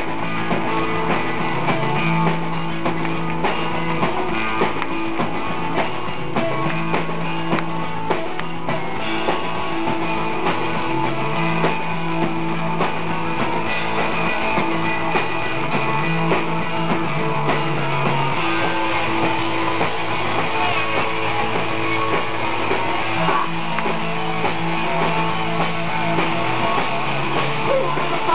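Rock band playing live: electric guitars over a drum kit, with a low line of held notes that changes every couple of seconds.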